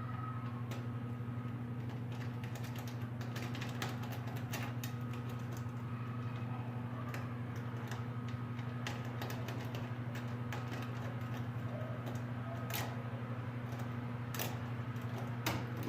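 A lock being picked: scattered small metallic clicks and ticks from the pick working the pins, more of them near the end, over a steady low hum.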